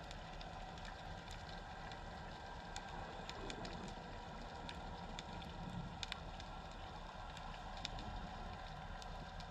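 Underwater ambience picked up by a submerged camera: a steady low hum and hiss with scattered sharp clicks and crackles.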